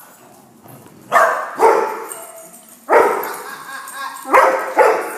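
Dog barking repeatedly: about five loud barks in three bouts, some in quick pairs.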